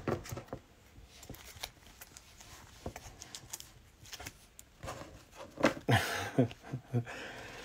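A stack of football trading cards handled by hand: soft scattered clicks and rustling as the cards are picked up, squared and fanned, with a louder rustle and a few short squeaks about six seconds in.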